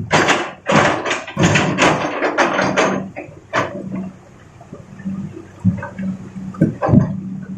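Rocks pouring from an excavator bucket into a dump truck's bed: a series of rushing crashes over the first three seconds. Then the machine's diesel engine runs steadily, with a few sharp knocks of stone near the end.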